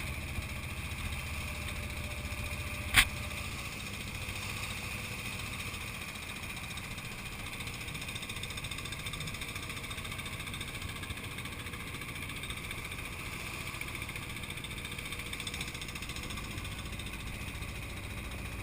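A boat's engine running steadily while under way, an even, unchanging drone, with one sharp click about three seconds in.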